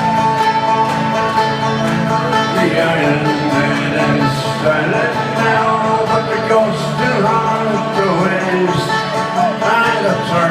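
Live Irish folk-punk band playing an instrumental passage, with banjo and guitar among other folk instruments, heard from within the concert audience.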